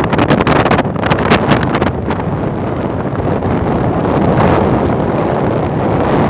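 Strong wind buffeting the camera microphone: loud, rumbling gusts that flutter hard for the first couple of seconds, then settle into a steadier rush.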